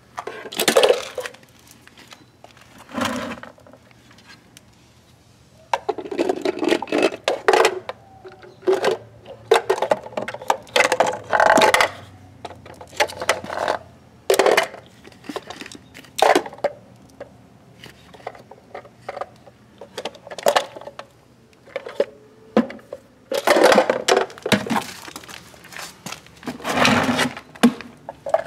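Hard plastic mini wheelie bins knocking and clattering as a reacher grabber's jaws clack onto them, with bursts of rattling and scraping against the pavement and a plastic tub. The knocks come irregularly, with short quiet gaps between them.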